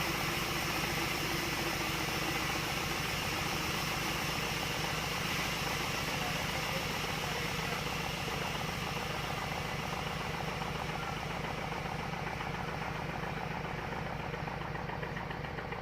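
An engine idling steadily with a rapid, even chug, most likely the sawmill's machinery left running between cuts. It grows a little quieter toward the end.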